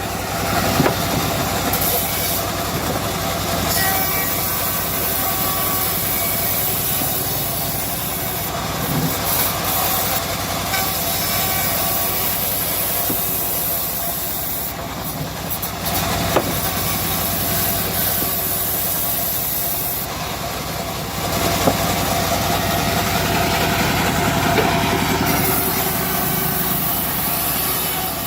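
Homemade bandsaw mill running steadily as its blade cuts through a teak log: a constant machine drone with a hissing cut over it and a couple of brief sharp knocks.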